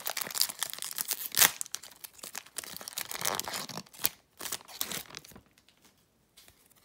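Foil wrapper of a football-card pack being torn open and crumpled by hand, a dense crackling rustle that stops about five and a half seconds in.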